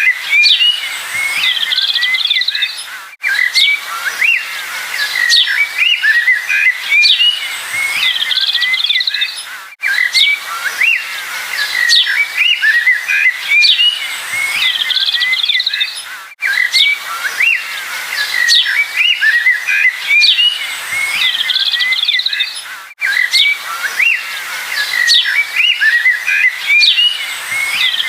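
Several small songbirds chirping and twittering in quick, overlapping calls over a light background hiss. It is a short stretch of recording looped over and over, with a brief dropout about every six and a half seconds.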